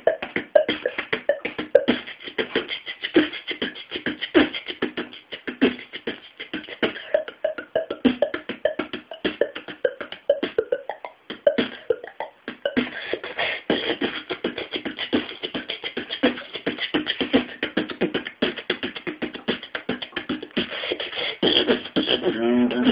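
A boy beatboxing: a fast, continuous run of sharp percussive mouth sounds, with a short lull about halfway through.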